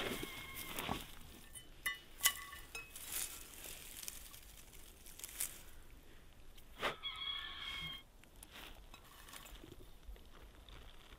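Faint rustling and scattered clicks of hands handling something among spruce branches. Three short high-pitched calls come through, the longest, just under a second, about seven seconds in.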